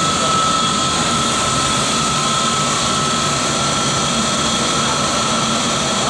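Biomass gasifier's gas burner firing into the furnace, with its centrifugal air blower running: a loud, steady rushing noise with a steady high whine over it.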